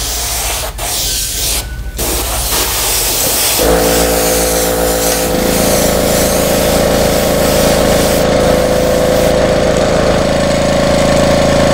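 Airbrush spraying paint with a steady hiss; about three and a half seconds in, an airbrush compressor's motor starts suddenly and runs steadily under it.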